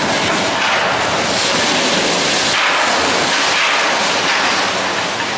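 Concrete from a silo wall, knocked loose by a crane's wrecking ball, crashing down and rumbling onto the rubble heap in a loud, continuous roar of falling debris that surges a few times.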